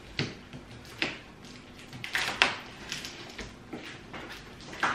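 A large cardboard box being handled and opened: scattered scrapes, rustles and knocks of cardboard and packing, the loudest a sharp knock about two and a half seconds in.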